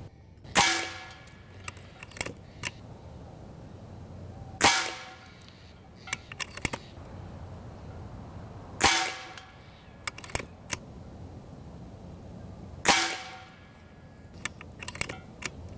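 AEA HP Varmint .25-calibre PCP air rifle fired four times, about four seconds apart. Each shot is a sharp crack with a short ringing tail, and a few quieter clicks come between the shots.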